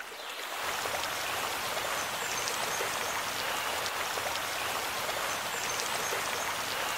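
Steady rush of splashing, falling water with a fine crackle of drops, fading in over the first half second.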